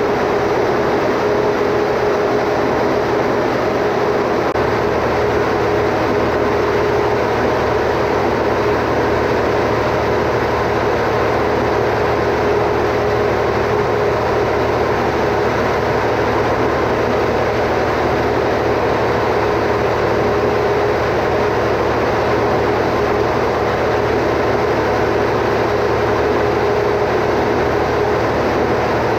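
Automatic standby generator running steadily at constant speed with an even, unchanging engine hum.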